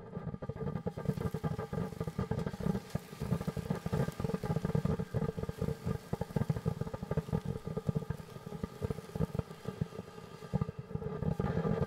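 World Class "It's a Girl" consumer fountain firework burning, spraying sparks and stars: a steady rough rushing sound thick with rapid, irregular pops and crackles.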